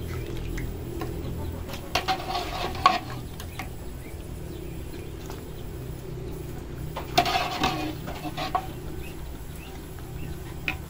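Light clinks of a pot and utensils as porridge is dished up, with two short bouts of clucking, about two seconds in and again about seven seconds in.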